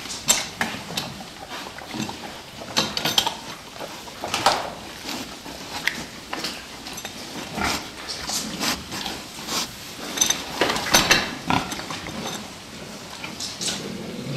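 Several fattening pigs grunting and calling at irregular intervals, with a few louder, sharper cries among them.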